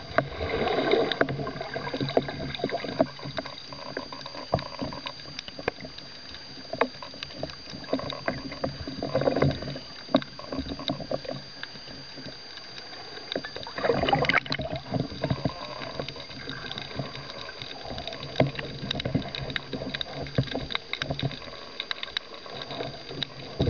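Water swishing and bubbling heard underwater, with scattered clicks and two louder gushes of water, about a second in and around fourteen seconds in.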